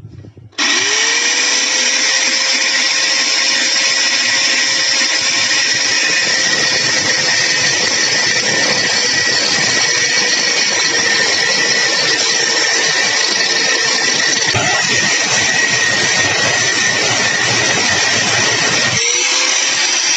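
Electric power tool starting up about half a second in, its motor whine rising quickly to a steady pitch over a loud, hissing grind. It runs steadily, stops briefly near the end and spins up again.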